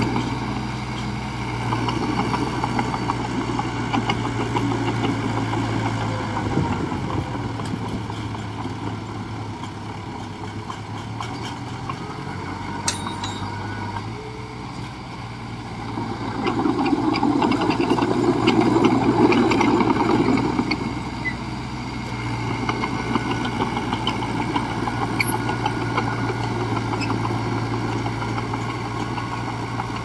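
Heavy diesel engines of earthmoving machinery running steadily, one swelling louder for a few seconds about halfway through, with a single sharp click just before.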